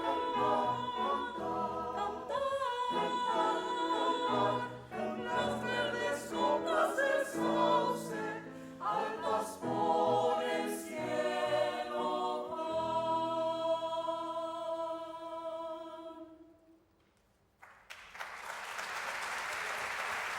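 Choir singing, ending on a held chord that dies away about sixteen seconds in. After a brief hush the audience breaks into applause.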